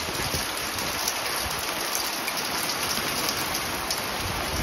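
Steady rain falling: an even hiss with scattered small ticks of drops striking.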